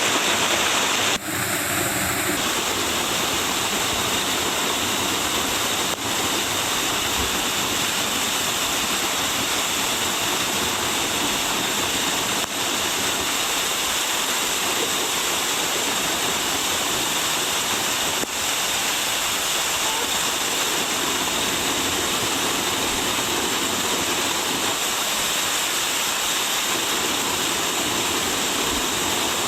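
Steady rush of water from a mountain stream falling over a waterfall.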